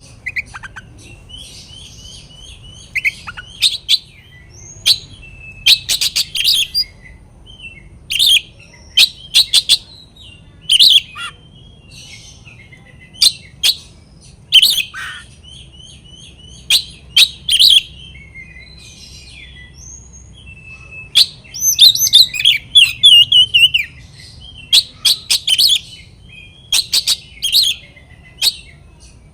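Oriental magpie-robin (kacer) singing a loud, fired-up song of sharp whistles and rapid chattering phrases broken by short pauses, with a dense run of notes about two-thirds of the way through. It is the agitated territorial song of a bird calling out for a rival. A faint low hum runs underneath.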